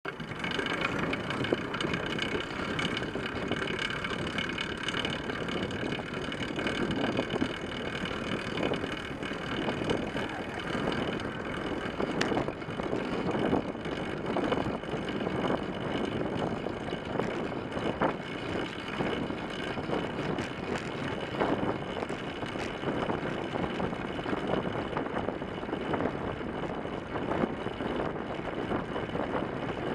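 Track bicycle rolling fast on a wooden velodrome track, heard from right beside the front wheel: steady tyre hum and wind rushing over the microphone, with frequent small clicks and knocks throughout.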